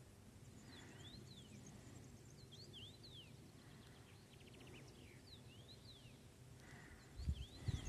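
Faint songbird calling, a series of short high whistled notes sweeping up and down, with a quick trill about three and a half seconds in. Low muffled thumps start near the end and are the loudest sound.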